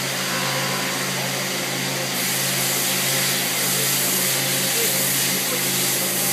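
CNC turret lathe running under test, a steady low hum under a hiss, as its slide is jogged around; the hiss grows louder about two seconds in.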